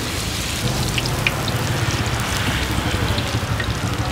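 Banana fritters deep-frying in hot oil: a steady sizzle with scattered small crackles.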